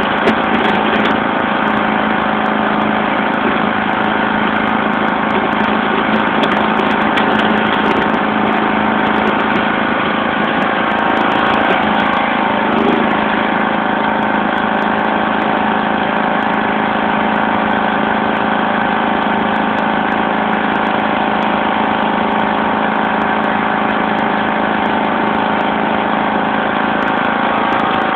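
1991 John Deere LX176 lawn tractor engine running steadily while the tractor pushes snow with its front blade.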